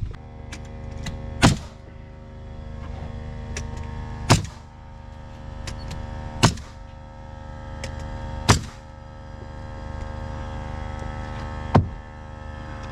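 Five sharp nailing strikes a couple of seconds apart as rough-sawn siding boards are fastened to a wall, over a steady hum.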